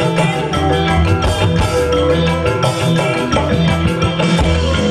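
Loud upbeat live band music for dancing, with a steady drum beat and a repeating bass line; no clear singing stands out.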